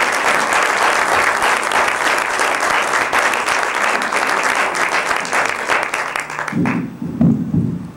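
Audience applauding, a dense clapping that dies away about six and a half seconds in. Near the end come a few loud low thuds from the podium microphone being handled.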